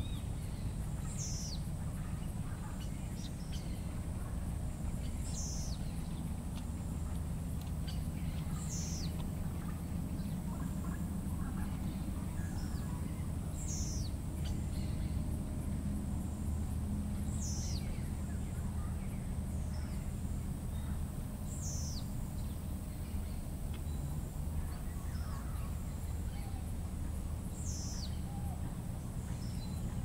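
Tropical forest ambience: a bird repeats a short, high call that falls in pitch, about once every four seconds, over a steady high insect drone and a low rumble.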